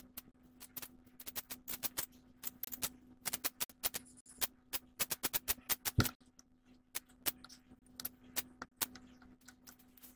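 Irregular runs of sharp clicks and taps, often several a second, with one heavier knock about six seconds in, over a steady low hum.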